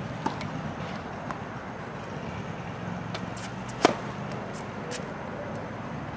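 Tennis serve: one sharp crack of the racket strings striking the ball, a little under four seconds in, over a steady low background hum. A few faint taps come before it.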